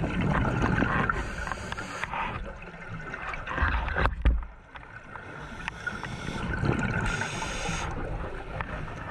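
Scuba diver breathing underwater through a regulator: hissing inhalations alternating with gurgling rushes of exhaled bubbles.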